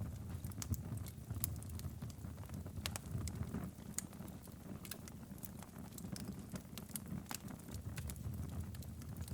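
Wood fire in a fireplace crackling, with irregular sharp pops over a low steady rumble.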